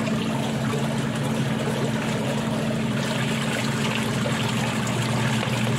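Praxis twin-tub washing machine's wash motor running, churning the tub of rinse water: a steady low motor hum under even sloshing water noise, during the fabric-softener rinse.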